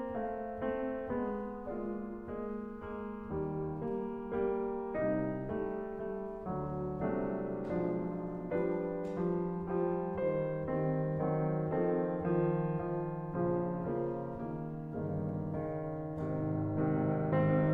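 Background piano music, a gentle melody of notes struck in steady succession.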